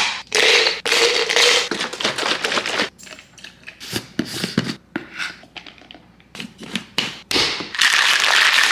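Making a protein shake at a kitchen counter: taps and clicks of plastic lids and containers as a shaker cup and a protein powder tub are opened and the powder is scooped in. Near the end the plastic shaker bottle is shaken hard, a steady loud shaking noise.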